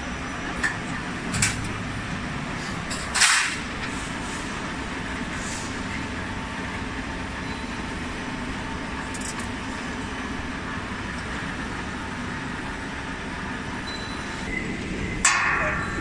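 Pittsburgh lock forming machine running with a steady hum. Sheet metal clanks sharply against it a few times, loudest about three seconds in and again near the end, where it rings briefly.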